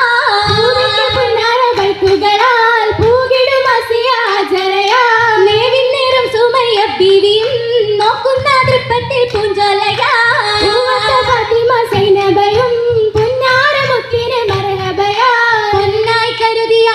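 Girls singing a Mappila song together through a stage PA for an Oppana dance, a continuous wavering melody, with the sharp hand claps of the dancers cutting through it.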